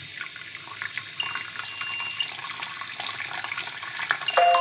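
Tap water running into a bathroom sink over a water-leak sensor probe, with the Geeni sensor's alarm giving two high steady beeps, each about a second long, one about a second in and one near the end: the sensor has detected water.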